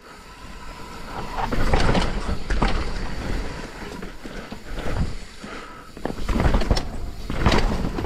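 Mountain bike rolling down a rocky technical trail: tyres crunching over rock with irregular knocks and rattles from the bike, loudest in two rough stretches, about two seconds in and again near the end.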